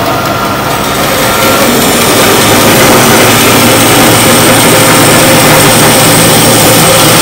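Band saw cutting through a rough log block: steady machine noise over a low hum, growing louder over the first two seconds as the blade works into the wood, then holding steady.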